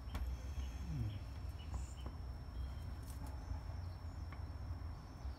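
Faint scattered clicks and light knocks of a brake piston and caliper being handled and pressed together by hand, over a steady low background rumble.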